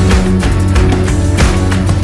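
Background music with a steady drum beat over bass notes.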